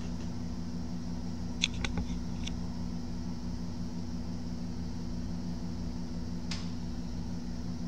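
Steady electric fan hum with a few light plastic clicks, two or three about two seconds in and one more near the end.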